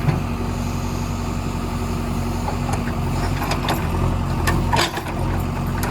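JCB backhoe loader's diesel engine running steadily, with a few sharp clanks in the second half.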